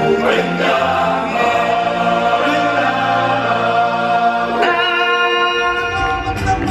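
Choir singing sustained chords with musical accompaniment in a stage show's song. The chord shifts about four and a half seconds in, and a low, busier accompaniment comes in near the end.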